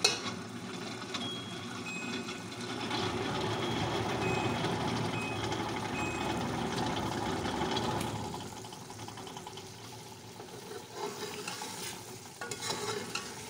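Beef and potato curry sizzling and bubbling in an aluminium pot while a metal spoon stirs and scrapes through it, at the stage of frying the masala down with a little water. The sizzling is louder for the first eight seconds or so, then quieter.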